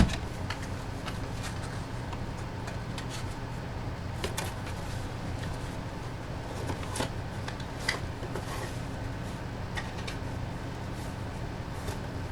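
Scattered light clicks and knocks from hands handling packaging and items on a table, one sharp knock right at the start, over a steady low hum.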